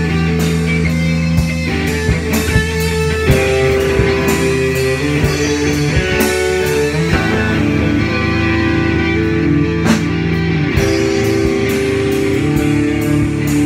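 A rock band jamming: electric guitars playing sustained notes over a drum kit, with frequent drum and cymbal hits.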